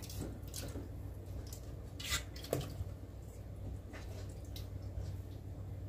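Fresh butter being squeezed and formed by hand in a metal bowl of rinse water: small wet squelches and drips, with a couple of light knocks against the bowl about two seconds in, over a steady low hum.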